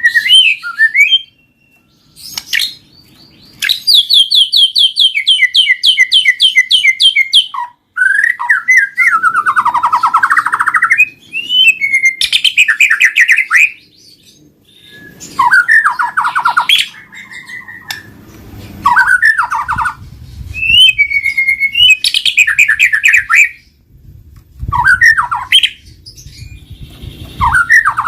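White-rumped shama (murai batu) singing in loud, varied phrases: fast strings of repeated notes, whistled slurs and trills, broken by short pauses. This is the kind of full song played to provoke a reluctant shama into singing.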